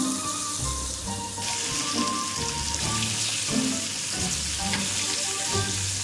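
Flour-coated squid rings deep-frying in hot sunflower oil in a small fry pan: a steady, dense sizzle that grows fuller and brighter about a second and a half in.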